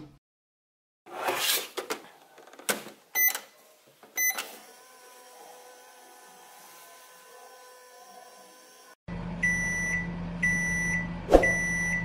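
Pink 'just like home' toy microwave oven: two short electronic beeps as it is set going, a faint steady hum while it runs, then a louder low buzz with three beeps about a second apart, the end-of-cycle signal, and a sharp click near the end.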